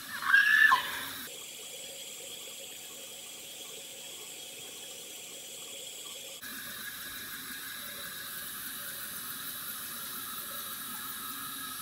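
Bathroom sink tap left running, a steady even hiss of water while face-wash suds are rinsed off. A short vocal sound comes right at the start.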